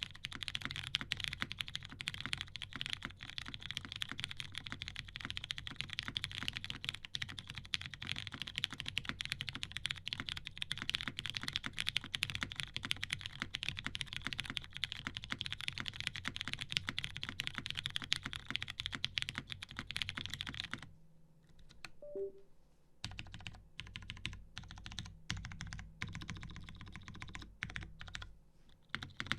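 Custom mechanical keyboard with lubed vintage Cherry MX Brown tactile switches on an aluminium plate and GMK keycaps, being typed on quickly and continuously. About two-thirds of the way through, the typing stops for about two seconds, then resumes in shorter, sparser runs of keystrokes.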